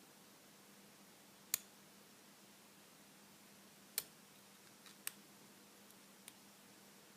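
A few sharp, isolated metallic clicks, spaced a second or more apart, from a lock pick and tension wrench working the spool-pinned core of a Lockwood 334C45 padlock. Under them is a faint steady hum.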